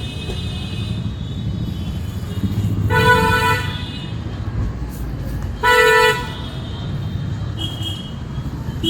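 Two vehicle horn honks, each about half a second long, about three seconds in and again near six seconds, over a steady rumble of road traffic.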